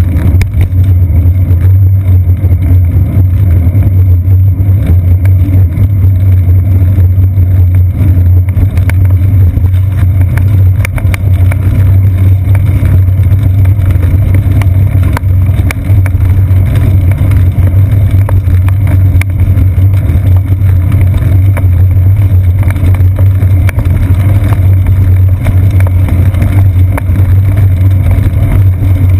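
Steady low rumble of wind buffeting and road vibration picked up by a GoPro Hero 2 in its housing on a moving bicycle's seat post. About a third of the way in, fine rapid ticking joins the rumble as the tyres run over brick pavers.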